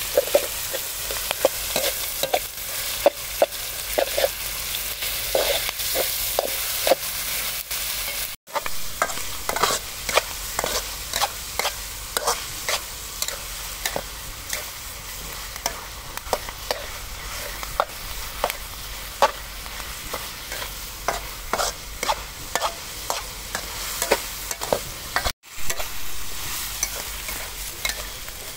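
Food stir-frying in a hot pan: a steady sizzling hiss with frequent sharp scrapes and taps of a utensil against the pan, several a second. The sound cuts out for an instant twice.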